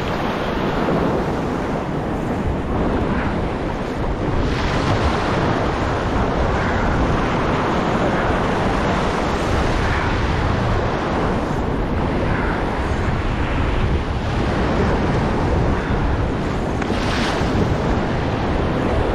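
Ocean surf washing and breaking in shallow water close by, with wind buffeting the microphone; louder washes of breaking water come about four seconds in and near the end.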